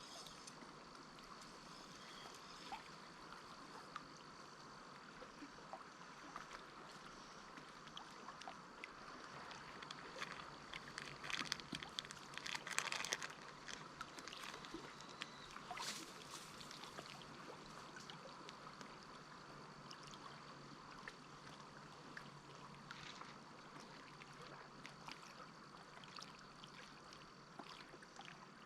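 Faint water sounds around a kayak: light splashing and trickling, with a few louder splashes near the middle.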